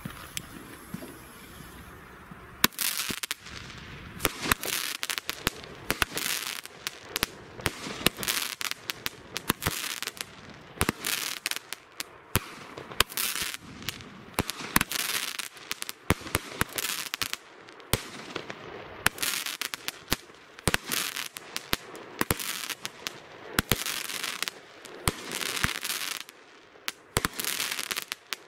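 Consumer firework battery, a 16-shot 'Discovery' cake, firing shot after shot: sharp launch reports and bursting stars with crackle between them, starting about two and a half seconds in.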